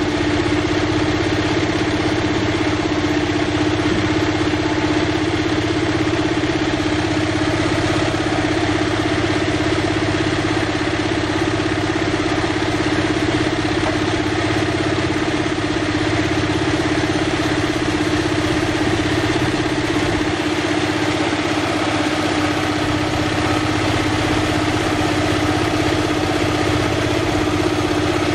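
Small single-cylinder diesel engine of the horizontal hopper-cooled kind, running steadily at a constant speed to drive a fish-feed machine.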